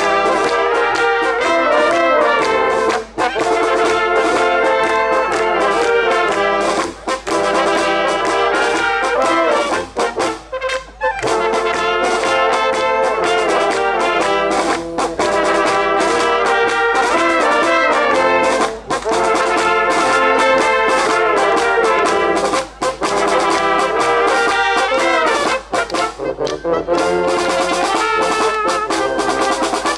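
Brass band music, with trumpets and trombones playing a tune in phrases that break off briefly every few seconds.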